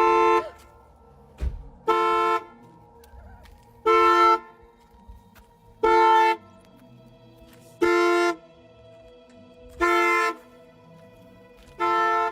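Car horn sounding in short blasts about every two seconds, the steady on-off pattern of a car alarm going off. A single short thump about a second and a half in.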